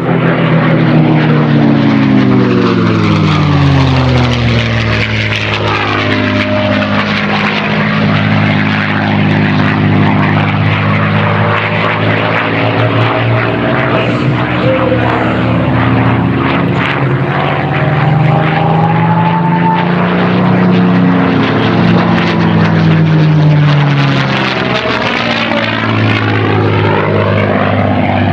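North American P-51D Mustang's Packard Merlin V-12 engine and propeller running at display power in flight. The engine note falls in pitch over the first few seconds as the aircraft passes, holds steady, then rises and falls again around twenty seconds in on another pass.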